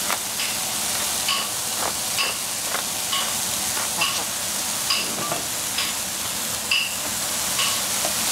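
Mushrooms sizzling in a hot pan while being stir-fried, with a utensil scraping and clinking against the pan about once a second over a steady frying hiss.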